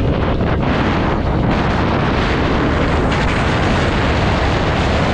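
Loud, steady wind rush on the camera microphone as a Yamaha Aerox scooter accelerates at full throttle, with the engine mostly buried under the wind noise.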